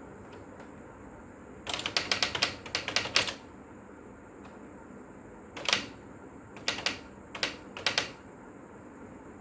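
Electric typewriter typing, its type striking the paper in sharp clicks: a quick run of strikes about two seconds in, then a few scattered strikes from about six to eight seconds, over a steady background hum.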